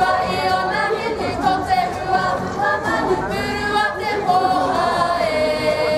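Kapa haka group singing together in unison, a Māori waiata sung for a poi dance.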